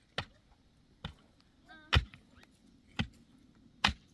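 Pickaxe striking stony earth while a foundation trench is dug by hand: five sharp blows, about one a second. A short voice sounds just before the second-loudest blow, about two seconds in.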